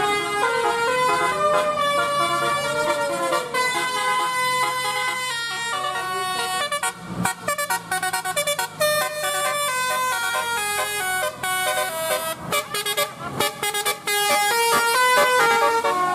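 Bus basuri telolet horn playing a fast, continuous melody of stepped notes, with a sliding, siren-like note early on.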